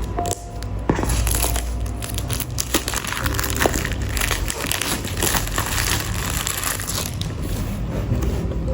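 Packaging being handled and unwrapped: crinkling, rustling plastic or paper with scattered clicks and taps.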